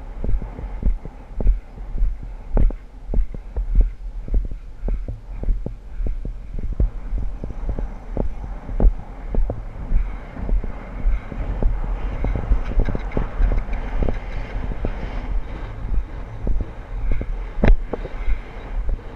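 A horse's hoofbeats on grass at speed, heard from a camera riding on the horse: regular low thuds about twice a second over a steady rumble and wind on the microphone. One sharper crack stands out near the end.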